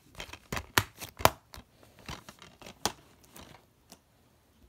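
Black plastic DVD case being handled: a string of sharp plastic clicks and taps with light rustling, loudest in the first second and a half, with a few fainter clicks after.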